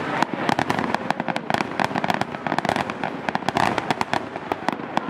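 Aerial fireworks display: many shells bursting in quick, irregular succession, a dense run of sharp bangs and crackles.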